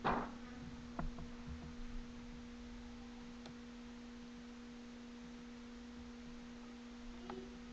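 Steady low electrical hum, one pure tone with a fainter higher overtone, with a few faint clicks in the first two seconds.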